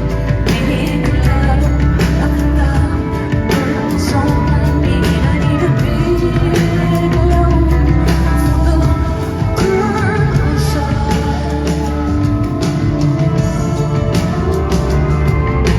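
Live rock band playing a song: a woman singing over keyboards, electric bass and a drum kit, with a heavy bass line and frequent drum hits.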